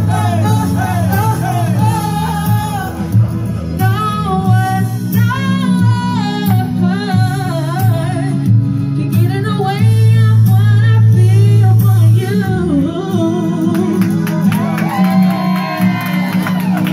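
Women singing into microphones, amplified through a Peavey PA speaker over backing music with a steady bass line.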